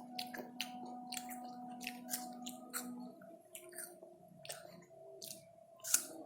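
Close-up chewing of crisp pear, a run of irregular wet, crunchy clicks from the mouth. A faint steady hum sits underneath, part of it stopping about halfway through.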